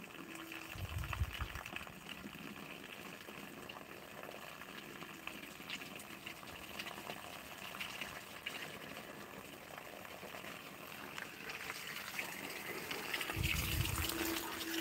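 Quiet outdoor garden ambience: a faint steady hiss with scattered faint ticks. Low rumbling on the microphone about a second in, and again near the end as the phone is moved.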